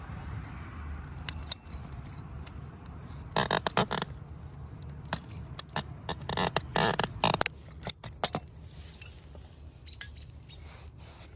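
Clusters of short, sharp scrapes and clicks: one brief burst about three and a half seconds in, then a longer run from about five to eight seconds in, over a low steady background.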